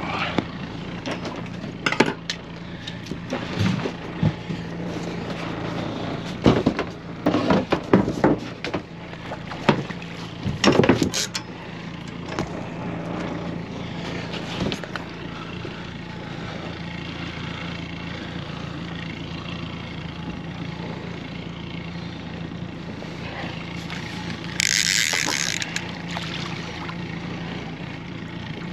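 Small boat motor running with a steady hum, under a run of knocks and clatters in the first half. A short hiss comes near the end.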